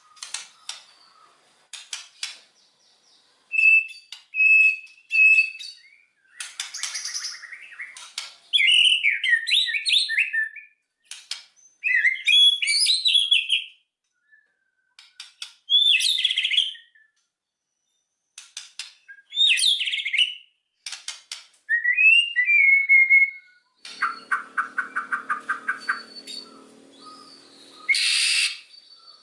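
White-rumped shama (murai batu) singing loudly: separate phrases of sharp clicks, clear whistled notes and fast warbled runs, with short pauses between them. Near the end comes a fast rattling, chattering run.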